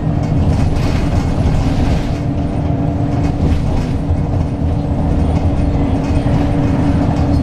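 Cabin noise inside a 2004 Eldorado EZ-Rider II transit bus at steady road speed: the drone of its Cummins ISB diesel engine mixed with tyre and road noise.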